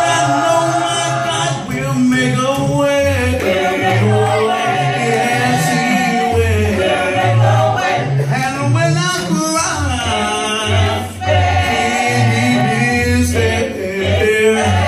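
A mixed group of men's and women's voices singing a gospel song a cappella in close harmony, with low bass notes held beneath the upper parts.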